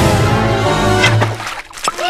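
Cartoon music with sound effects: the low rumble of a cement mixer truck that stops about a second and a half in, a click about a second in, and a quick rising whistle near the end.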